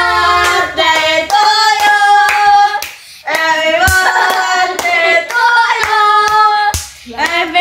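A group of young voices singing a birthday song together while clapping their hands along to it, in short sung lines with brief pauses between them.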